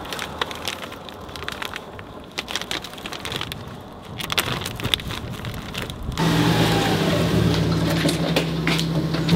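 Plastic wrapping crinkling and tearing as it is peeled off a sanding machine's motor, with many sharp crackles. About six seconds in it gives way to a louder, steady low machine hum with scattered clicks over it.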